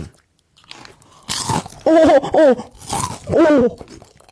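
Close-miked crunching and chewing of a crispy fried potato snack, starting about a second in, with several crunches interleaved with short hums through the mouth.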